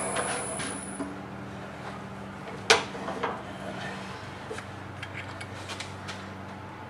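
Turning noise on the wood lathe tapers off in the first second, leaving a steady low hum. One sharp knock comes about three seconds in, with light clicks and clinks of metal tools and parts being handled around it.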